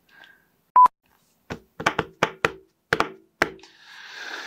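A short, loud click about a second in, then a quick, uneven run of about eight sharp knocks over two seconds, and a soft rising hiss near the end.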